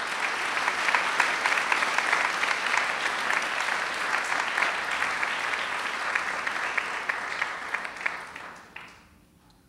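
Audience applauding, a steady patter of many hands that dies away near the end.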